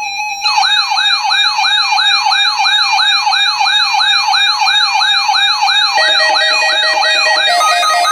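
Electronic siren-style alert sound: a steady high tone joined after about half a second by a fast, repeating rising whoop, about three or four a second. About six seconds in it switches to a pattern of stepped beeping tones.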